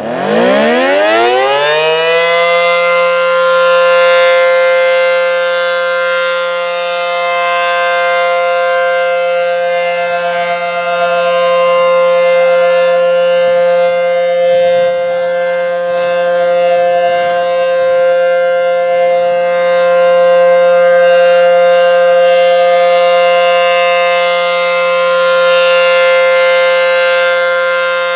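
ACA Howler three-phase electromechanical outdoor warning siren starting up: it winds up in pitch to full speed in about two seconds, then holds a steady alert tone with slow, slight swells in loudness.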